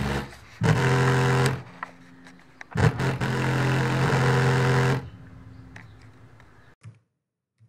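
Bass-heavy music played through a woofer driven by an NE5532 low-pass filter and TDA7294 amplifier, the low notes strongest. It comes in two short stretches that stop abruptly, then fades to near silence near the end.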